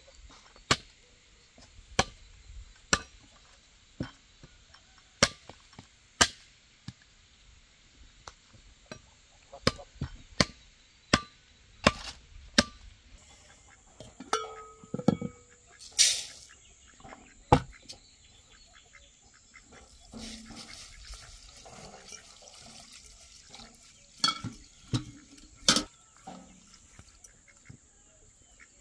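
Hatchet chopping a wooden pole, sharp strikes about once a second, followed in the later part by the clink and clatter of metal pot lids and cookware being handled.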